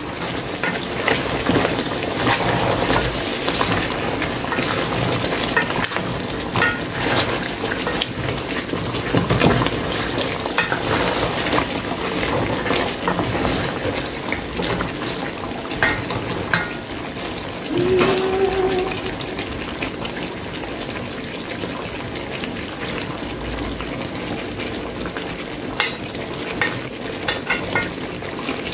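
Wooden spoon stirring pieces of cow foot in a steaming metal pot, with repeated scrapes and knocks against the pot over the steady hiss of the pot cooking on the stove.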